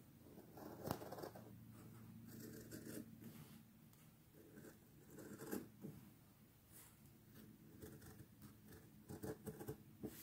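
Scissors cutting through folded fabric: faint, irregular snips and scratchy blade-on-cloth sounds.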